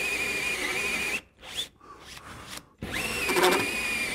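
Power drill turning a hole saw through a wooden door, boring the hole for the door-handle mechanism from the second face so the wood does not tear out. The motor whines steadily, stops a little over a second in, and starts again about three seconds in.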